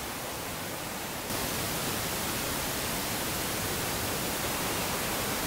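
Steady rushing noise of the open coast, surf and wind together, with no distinct events; it steps up in level about a second in.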